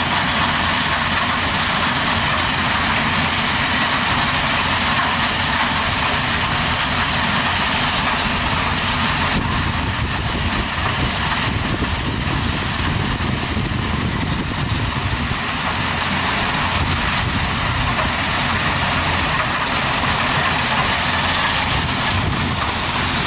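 Heavy construction machine's engine running steadily.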